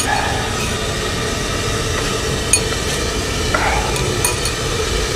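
Chopsticks lifting noodles and wide wonton wrappers in a ceramic bowl, with a few light clinks against the bowl about halfway through and near the end, over a steady low background rumble.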